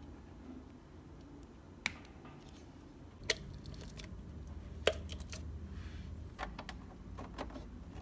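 Sharp plastic clicks and taps as a Mi TV Stick's power adapter and cables are handled and plugged in, one into a wall socket; single clicks come every second or so, the loudest about five seconds in, then a quick run of smaller clicks, over a low steady hum.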